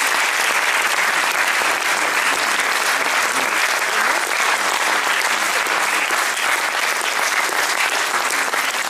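Audience applauding steadily: many hands clapping at once in a dense, even sound.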